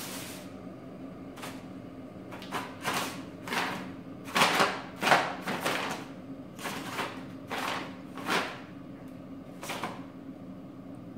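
Brown paper bag crinkling and rustling in irregular bursts as a cat pounces on it, paws at it and climbs onto it, loudest about halfway through.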